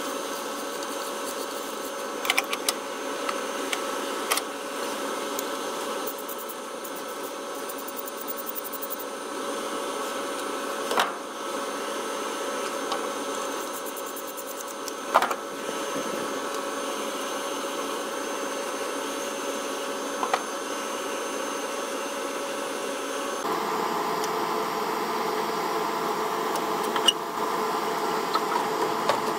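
A steady mechanical hum with a few separate sharp clicks and knocks of hand tools, a ratchet wrench among them, on the engine's fittings. The hum grows louder near the end.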